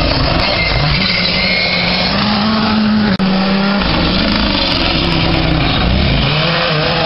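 Rally cars at speed on a gravel stage, engines at high revs with the pitch stepping up and down through gear changes. The sound breaks off briefly about three seconds in and picks up with another car.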